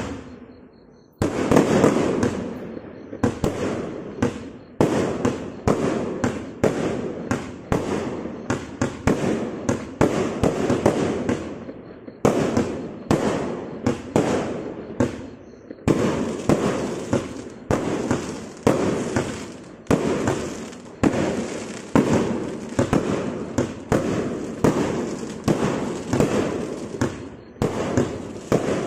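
A 134-shot firework cake firing shot after shot: a launch bang about one to two times a second, each trailing off in crackle. It starts about a second in after a brief pause.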